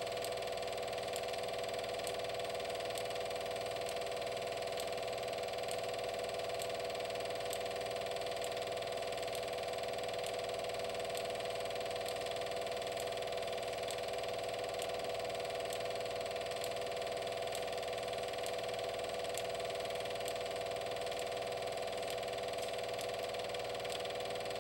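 Steady mechanical hum with a faint, regular ticking that keeps an even pace throughout.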